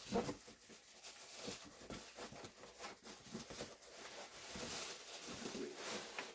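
Cardboard box and plastic-wrapped packaging rustling and scraping as a 43-inch flat-screen TV is worked out of its tight-fitting box: a continuous run of scratchy rustles and small knocks, busiest in the second half.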